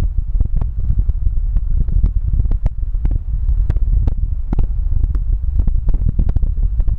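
Steady low rumble of a car driving, with wind buffeting the microphone and frequent sharp crackles.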